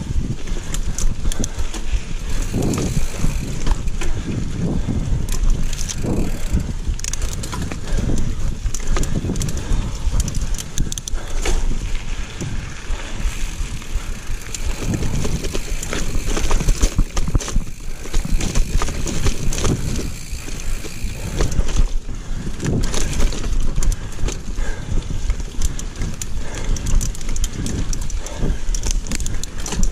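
Giant mountain bike ridden hard over a rough, root-strewn dirt trail: the tyres rumble on the ground while the chain and frame rattle and knock with every bump, against wind buffeting the helmet-level microphone.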